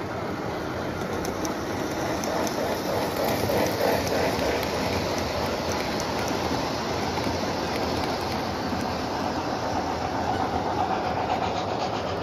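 O-gauge three-rail model trains running: a steady rumble of wheels and motors rolling over the track, with scattered light clicks. It swells a little as a steam locomotive and its freight cars pass close by.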